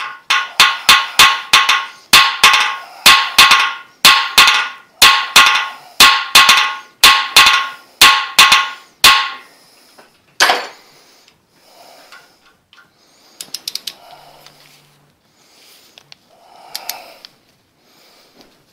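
About twenty ringing hammer blows on steel, roughly two a second for some nine seconds, then one more blow: shock-hitting a seized, corroded cylinder-head stud in a Ford flathead V8 block to break it free. A few light metal clicks follow.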